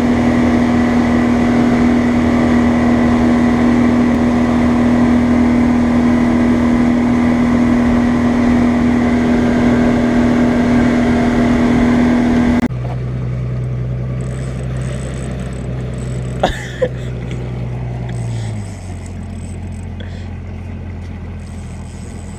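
Boat motor running steadily at speed, then, after an abrupt cut about halfway, a lower engine drone that drops in pitch as the motor throttles back. Two short sharp clicks come in between.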